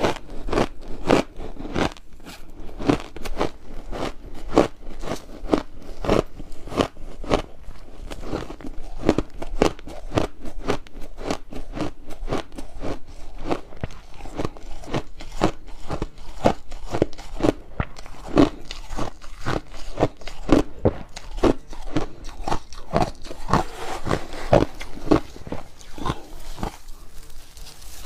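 Ice being bitten and chewed close to the microphone: a steady run of crisp crunches, about two to three a second.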